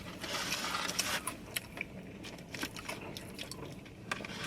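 Eating sounds close to the microphone: a soft rustle of food packaging for about the first second, then scattered small clicks and smacks of chewing.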